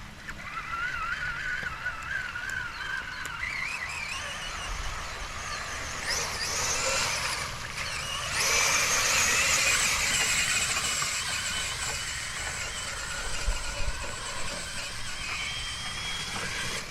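Brushless motor of a Traxxas Summit RC truck whining, its pitch wavering and rising with the throttle. It gets louder and noisier from about halfway as the truck speeds up.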